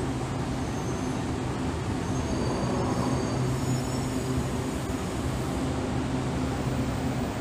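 Taiwan Railways EMU800 electric multiple unit at the platform, its equipment humming steadily, with a faint high whine about midway.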